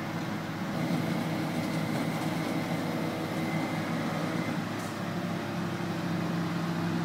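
Flatbed tow truck's engine running steadily while its winch pulls a car up the tilted bed. The drone's note changes slightly about six seconds in.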